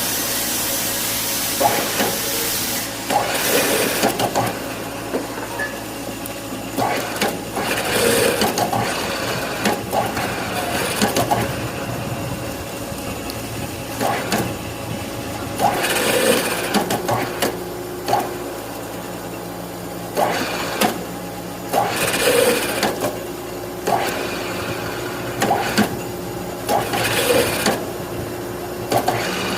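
CNC milling machine cutting metal: a steady machine hum with repeated short rushing bursts of cutting noise every second or two, and at times a steady whine from the spindle.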